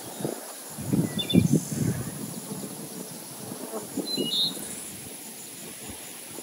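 Soft rubbing and knocking of dough work on a wooden board, the rolling pin and a knife on a thin rolled-out sheet of dough, loudest in the first two seconds. Birds chirp briefly twice over a steady insect buzz.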